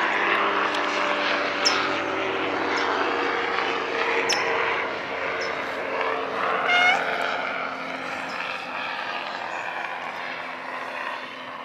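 Airplane flying overhead: a steady drone with a low engine hum, loudest near the start and slowly fading.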